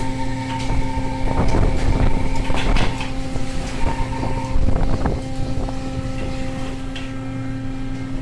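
Steady drone of a fishing boat's engine and deck machinery, with scattered knocks and clatters over it, busiest in the first half.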